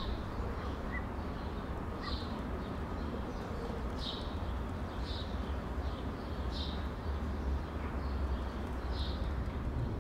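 Outdoor ambience: wind rumbling on the microphone, with a small bird chirping every second or two.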